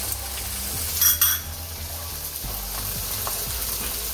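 Egg and spice omelette mixture sizzling steadily as it fries in hot oil in an aluminium kadai, with a quick cluster of sharp knocks about a second in.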